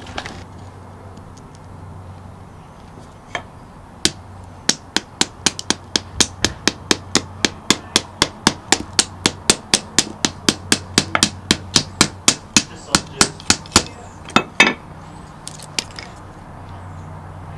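A knife being batoned down through a stick of pine fatwood, its spine struck with a hatchet head: one tap, then a steady run of sharp knocks about four a second for some ten seconds, ending with a couple of harder blows as the stick splits.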